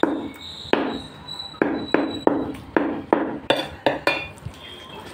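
A meat cleaver chopping chicken on a chopping block: about ten sharp blows at an uneven pace, stopping about four seconds in.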